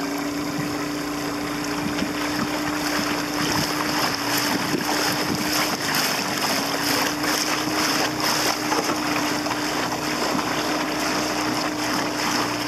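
1999 Mariner 15 hp short-shaft outboard running steadily with the boat under way, its pitch dipping briefly about six seconds in before picking up again. Water rushes past the hull and wind buffets the microphone.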